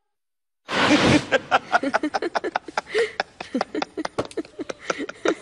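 A man laughing hard in a quick, uneven run of laughs. It starts abruptly about a second in, after a moment of dead silence.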